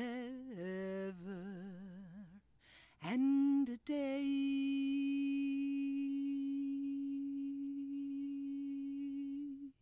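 A woman's voice humming the closing notes of a folk song without words. It wavers with vibrato at first, breaks off briefly, then holds one long steady note for about five seconds before cutting off.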